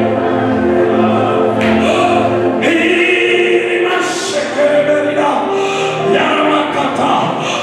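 Gospel worship singing by a group of voices, the congregation or choir singing together with music.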